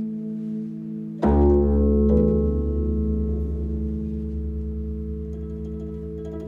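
Improvised music for bass koto and electric guitar. Sustained ringing tones are fading when, just over a second in, a deep low note is struck; it rings on with higher overtones and slowly dies away.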